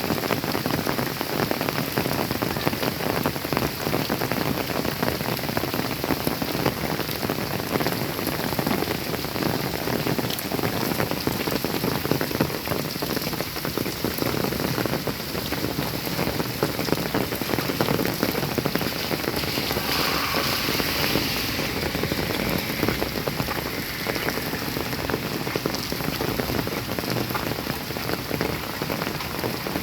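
Steady rain falling, a dense patter of drops hitting surfaces.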